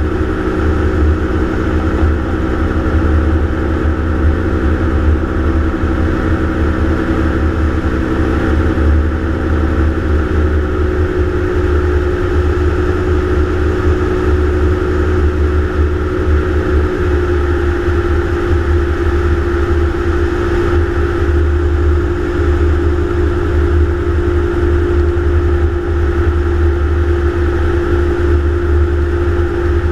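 Gyroplane engine and propeller running steadily in flight, heard from onboard, under a heavy low rumble of wind on the microphone. The engine note shifts slightly about ten seconds in and again around seventeen seconds.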